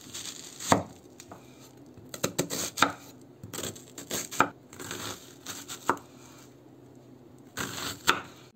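A kitchen knife slicing through a peeled onion on a wooden cutting board: crisp crunching as the blade goes through the layers, with several sharp knocks as it meets the board.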